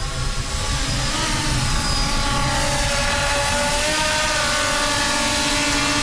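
The Helion 10, a 10-inch 6S FPV quadcopter, with its motors and propellers whirring steadily as it comes down to land. The whirr is a rushing hiss with several held tones whose pitch wavers slightly as the throttle is eased.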